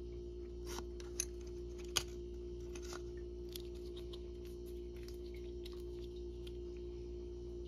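Small handling clicks and taps from a brass pressure relief valve and a metal tube of pipe dope as the compound is squeezed onto the valve's threads, with two sharper clicks about a second and two seconds in. A steady low hum runs underneath.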